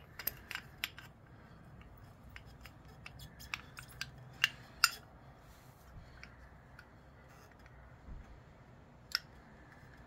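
Light metallic clicks and taps, irregular, as new metal-backed brake pads are slid and seated into a motorcycle's front brake caliper, the loudest two a little before and at about five seconds in.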